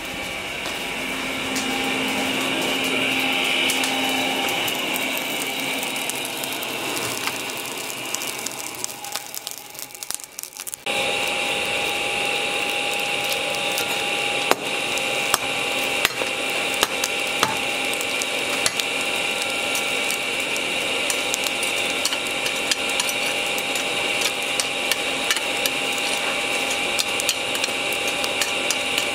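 Charcoal forge under forced air: a steady blower whine and rush of air, with the burning charcoal crackling and popping throughout. The blower sound cuts in abruptly about eleven seconds in, after a fainter hum that fades away.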